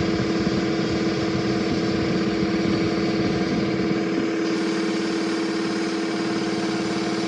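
A motor running steadily with a constant hum, the kind of machine noise heard at a truck tyre repair; the deepest part of the sound thins a little about four and a half seconds in.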